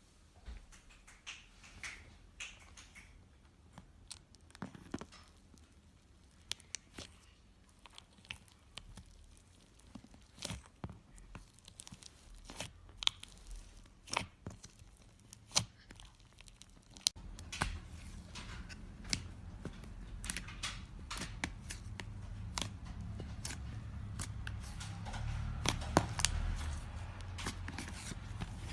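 Slime being worked by hand, giving scattered, irregular crackling clicks and pops. A steady low hum joins them after a cut about halfway through.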